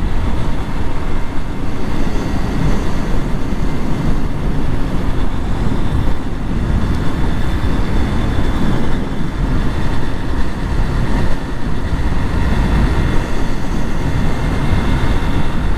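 Steady rush of wind over the microphone of a motorcycle cruising at highway speed, with the bike's engine running evenly underneath.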